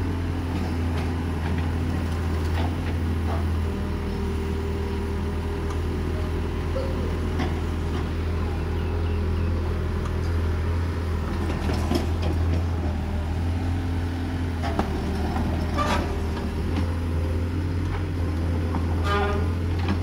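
Caterpillar 308D CR mini excavator's diesel engine running steadily as it digs soil, with a few sharp knocks, the clearest about twelve and sixteen seconds in.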